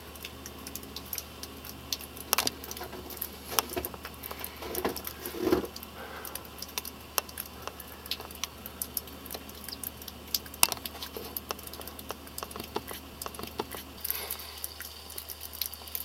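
Faint, irregular ticking and light pattering of falling snow, with a few sharper clicks, over a low steady hum.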